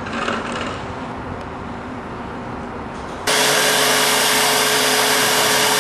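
Low steady background noise, then about three seconds in a sudden jump to the loud, steady rush of air from a DuroVac DVP industrial vacuum system running, with a steady hum under it.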